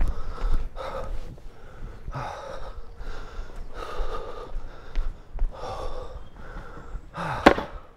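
A person panting heavily, short loud breaths in and out about once a second, out of breath from the effort of walking uphill. One sharp knock near the end is the loudest sound.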